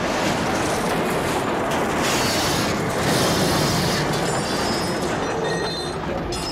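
A police sedan being crushed and dragged under a heavy bridge span: a long, loud grinding and crunching of metal on metal and pavement, with thin metallic squeals ringing out in the second half.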